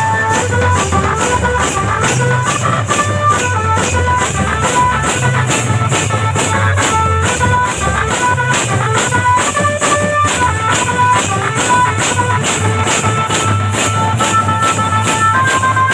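Procession band music: pairs of brass hand cymbals clashed in a fast, steady beat, with a drum and a stepping melody playing over them.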